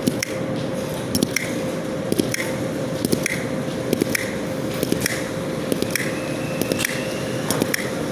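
Automatic numbering machine running: its mechanism clacks about once a second, sometimes in a quick double click, over a steady motor hum.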